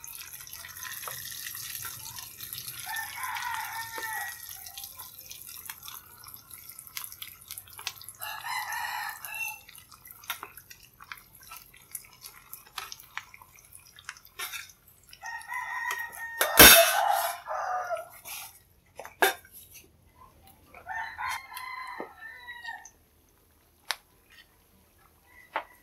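Cooking oil sizzling in a frying pan with tofu pieces frying, and metal tongs clicking and knocking against the pan, one sharp knock a little past the middle. A rooster crows in the background four times, about five seconds apart.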